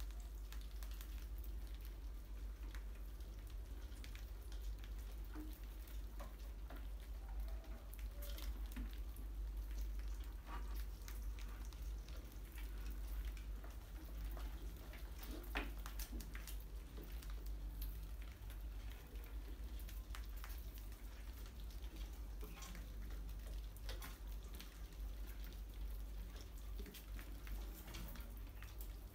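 Rats scurrying about on a tiled floor and over glass jars: scattered faint clicks and scratches of their claws, over a steady low hum.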